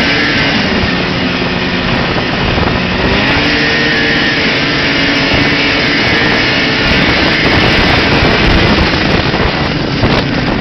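Old Arctic Cat Pantera snowmobile engine running under way, its pitch rising about three seconds in and then holding steady over a rushing noise.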